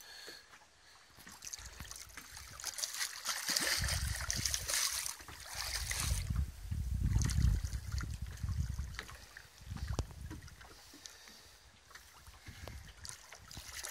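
Water sloshing and splashing at the surface beside a boat as a hooked shark moves alongside, with a stretch of low rumbling noise, loudest in the middle.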